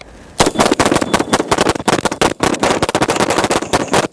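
Three guns firing rapidly at the same time, the shots overlapping in a dense, unbroken string that starts about half a second in.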